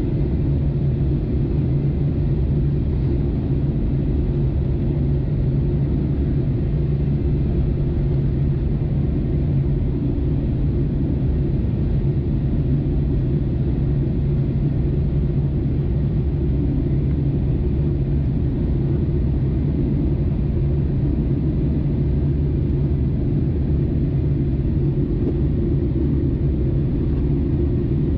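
Steady cabin noise inside an Airbus A320neo on descent: a constant low engine drone and airflow rumble.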